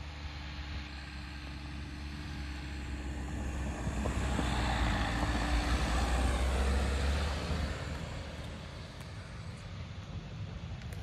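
Dacia Duster 4x4's 1.5 diesel engine running as the SUV drives past, growing louder to a peak about halfway through and then fading as it moves away.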